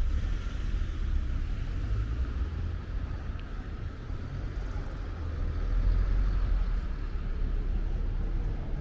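Road traffic: a car going by, with a steady low rumble of engine and tyre noise.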